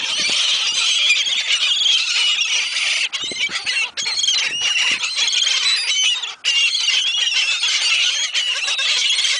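A large flock of gulls calling loudly all at once, many overlapping squeals and squawks, as the birds crowd in for thrown food.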